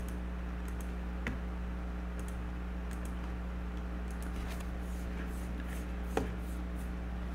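Steady low electrical hum with a few faint computer mouse clicks, one about a second in and a sharper one near six seconds.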